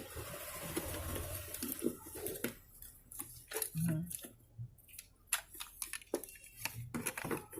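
Scattered clicks, taps and rattles of the vegetable cutter's plastic parts and a homemade wire spring being handled and pushed into place, with some rustling in the first couple of seconds.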